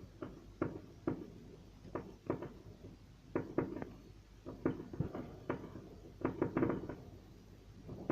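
A series of light knocks and clicks at uneven spacing, roughly one or two a second, some coming in quick pairs.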